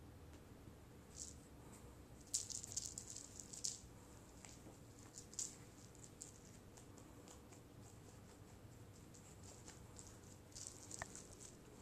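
Small feathered ball cat toy rattling faintly in short bursts of quick clicks as a cat bats and rolls with it on carpet. One burst comes a couple of seconds in, another near the end, with near quiet between.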